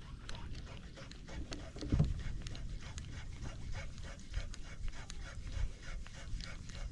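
Spinning reel being cranked on a lure retrieve: a steady run of quick rotor and gear ticks, about five a second.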